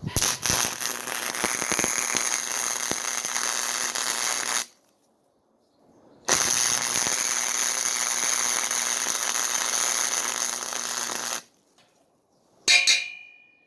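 Craftsman gasless flux-core wire feed welder laying two weld runs of about four and five seconds, a steady sharp crackle of the arc over a low hum, with a pause between; the welder at maximum voltage burned through the metal a little. A short metallic clink near the end.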